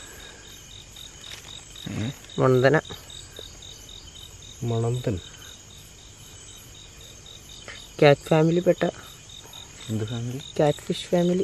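Crickets chirping in a steady, rapid high-pitched pulse, with a few short bursts of low voices rising over it.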